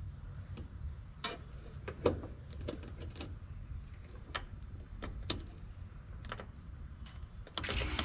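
Scattered light clicks and taps of multimeter test probes touching terminals and sheet metal inside a heat-pump condenser cabinet during high-voltage-to-ground checks for a direct short, over a steady low rumble.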